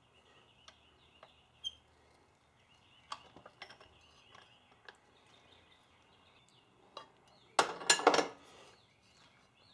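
Scattered metallic clicks and knocks, then a quick run of loud metal-on-metal clanks about eight seconds in, as a 3-inch steel tailpipe is worked to squash it into an oval to fit a turbo downpipe flange.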